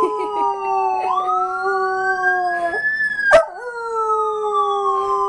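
Miniature schnauzer howling in long, drawn-out, sliding howls, together with a recorded emergency siren wailing as it plays back from a speaker. A sharp click sounds about three and a half seconds in.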